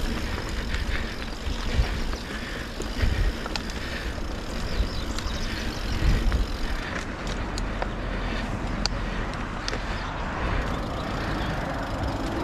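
Mountain bike rolling along a dirt trail: an even tyre and trail noise, with sharp clicks and rattles from the bike over rough ground. Deep irregular rumbling from wind buffeting the microphone runs under it.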